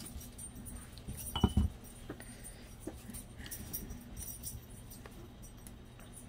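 Handling sounds of paper crafting: one sharp knock about a second and a half in, then a few faint taps and rustles as fingertips press a glued paper word strip down onto the card, over a low steady hum.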